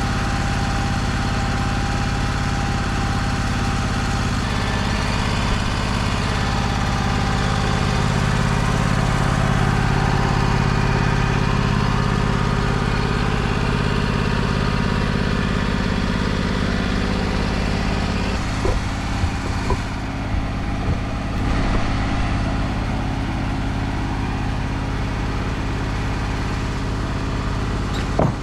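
An engine running steadily, with a few sharp knocks or clanks about two-thirds of the way through and one more near the end.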